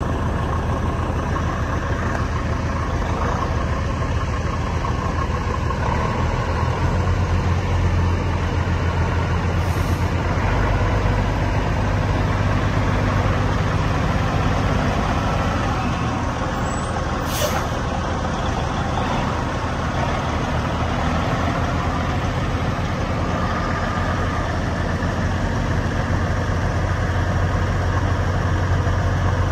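Kenworth T800 feed truck's diesel engine running steadily as the truck moves at low speed, with a strong low hum. Two short air-brake hisses cut through, a faint one about a third of the way in and a sharper one a little past halfway.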